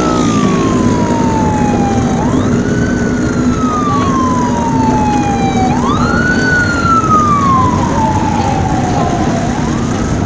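Emergency vehicle siren wailing, each cycle sweeping up quickly and then falling slowly, repeating about every three and a half seconds over a steady low rumble of traffic.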